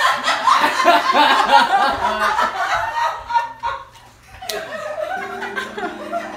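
Theatre audience laughing, dying away about three to four seconds in. Music with steady held notes comes in about a second later.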